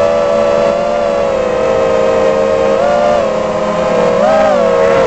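Armattan Rooster 6-inch FPV quadcopter's 2300 KV motors and propellers whining in flight. The pitch shifts up and down with throttle, with a short rise near the end.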